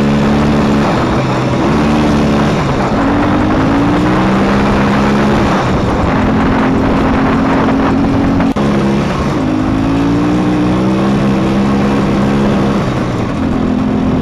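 Motorcycle engine under way, its pitch climbing and dropping back several times as it pulls up through the gears, with wind noise rushing over the microphone.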